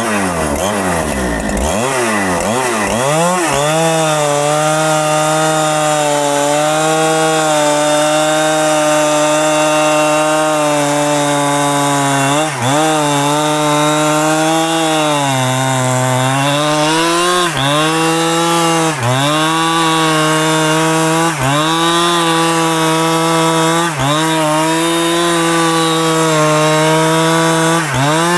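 Petrol two-stroke chainsaw revving up over the first few seconds, then held at high revs, cutting into rain tree wood. In the second half its pitch dips briefly every couple of seconds as it takes load, with one longer sag around the middle.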